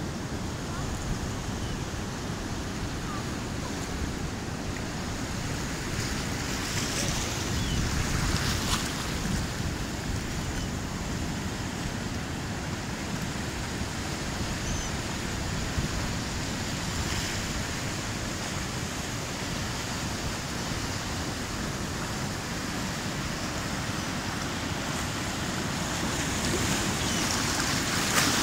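Ocean surf washing over a rocky shore: a steady rush of waves that swells louder about eight seconds in and again near the end.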